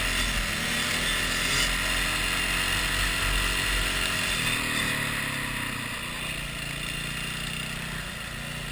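Dirt bike engine running under the rider while it travels along a road, with wind rushing over the microphone. The engine eases off and grows quieter through the second half as the bike slows.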